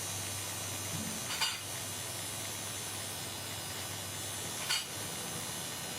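Steady hiss and low hum of running workshop equipment, with two short sharp clicks about three seconds apart.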